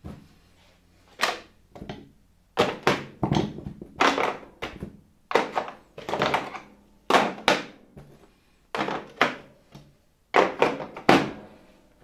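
A series of irregular knocks and clunks: hand tools (screwdrivers, pliers) being set down and packed into a plastic tool case on a wooden workbench, about fifteen hits, each with a short ringing tail.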